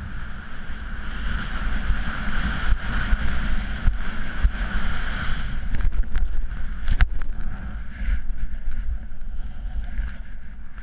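Wind buffeting a GoPro action camera's microphone as a snowboard rides through snow, with the hiss of the board sliding over the snow in the first half. A few sharp knocks come about six to seven seconds in.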